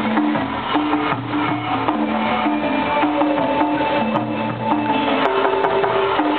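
Music of the Mirage volcano show: a melody of held notes over a busy hand-drum and percussion beat.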